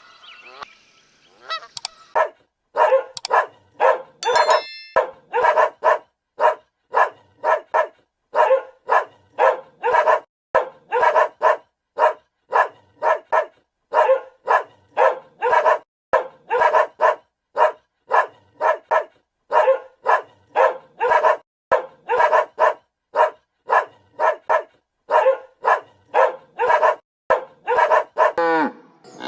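A dog barking over and over in short sharp barks, about two a second, after the tail of a goose's honk at the very start.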